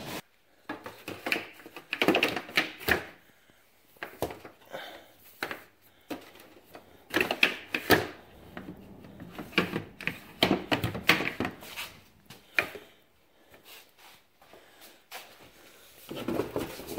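Irregular rustling, knocks and clatter of hands handling a mesh grass-catcher bag and a cardboard shipping box, in several busy spells with quieter gaps between.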